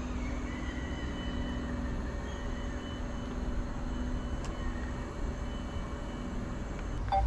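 Small camera drone's propellers humming steadily with a high whine as it is brought back down to land.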